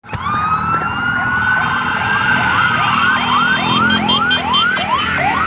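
Electronic siren sounding a long rising wail that turns, about halfway through, into a fast yelp of quick upward sweeps, about three a second. Many motorcycle engines run underneath.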